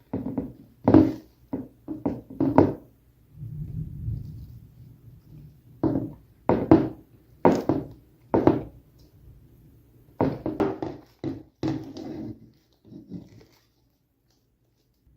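Slime being worked by hand: short squishes and pops in three clusters, with a softer, longer smear about four seconds in.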